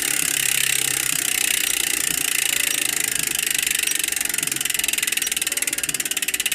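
Freehub of a Pasak mountain-bike rear hub (four pawls, three teeth each) buzzing as the wheel freewheels: a fast, even ratchet clicking that slows noticeably toward the end as the wheel loses speed.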